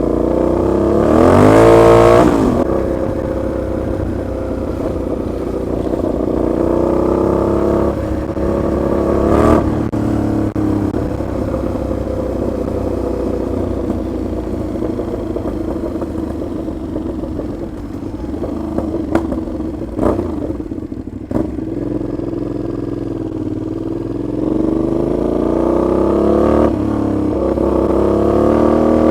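Aprilia Shiver 750 V-twin motorcycle with an open exhaust, accelerating and backing off several times: the revs climb sharply about a second in, again near ten seconds and toward the end, with steadier running in between. A few sharp cracks come through about two-thirds of the way in.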